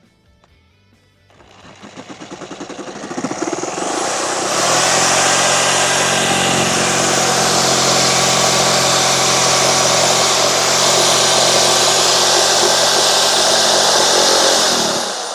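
A motor-driven machine spinning up with a pulsing, uneven start about a second in, then running steadily and loudly with a hissing rush for about ten seconds before shutting off near the end.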